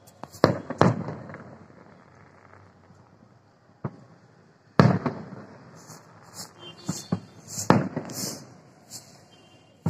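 Aerial fireworks bursting: several sharp bangs, the loudest about half a second in, near five seconds and near eight seconds, each trailing off. Lighter crackles sound between the later bangs.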